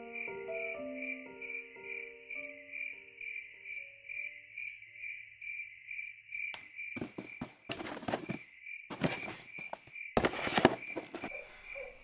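Crickets chirping in a steady pulsing rhythm, several chirps a second, while a few mallet-instrument music notes die away in the first few seconds. From about halfway in, irregular bursts of rustling noise come and go, loudest near the end.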